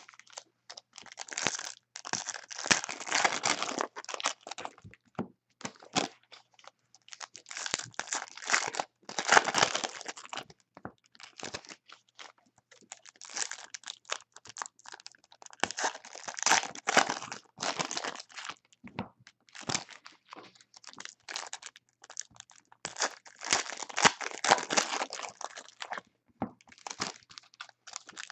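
Trading-card pack wrappers crinkling and tearing as packs are opened and handled, in irregular bursts with short pauses between them.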